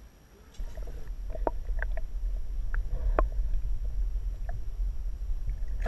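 Underwater sound picked up by a GoPro camera in its waterproof housing: a muffled low rumble of water moving around the housing that starts about half a second in, with a few scattered sharp clicks.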